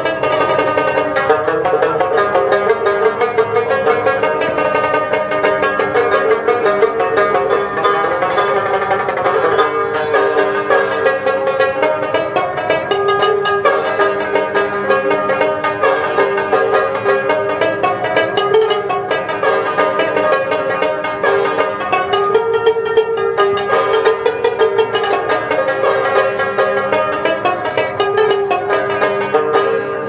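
Rubab played solo: fast plucked strokes over a steady ringing note.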